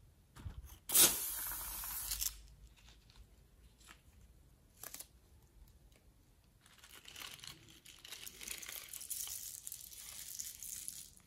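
A long rubber balloon snipped open with scissors: a sharp snip about a second in, then a hiss of escaping air lasting about a second. From about halfway through, the deflated balloon is squeezed and rubbed, crinkling as the sequins inside are pushed out.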